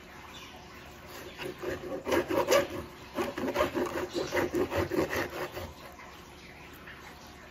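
Large kitchen knife sawing through a raw salmon fillet against a cutting board: quick back-and-forth rasping strokes, about four a second, starting about a second in and stopping near the end.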